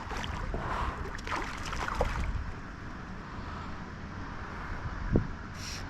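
Wind buffeting the microphone over a steady rush of water, with a few brief handling or splashing sounds, the sharpest about five seconds in.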